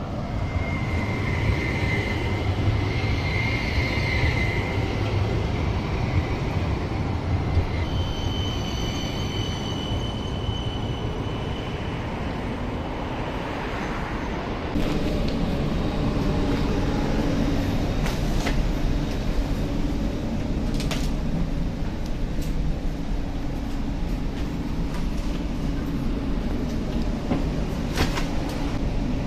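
CAF low-floor electric tram moving along its track: rolling noise with a high, steady whine from the electric drive that changes pitch about 8 s in and fades out by about 12 s. About 15 s in the sound changes suddenly to a steadier hum with a few sharp clicks, as of a tram running.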